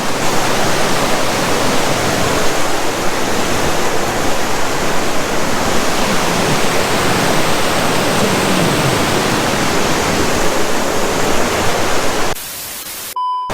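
Loud, steady rush of fast-flowing whitewater in the creek at Horsetail Falls. It cuts off abruptly near the end, followed by a short beep-like tone.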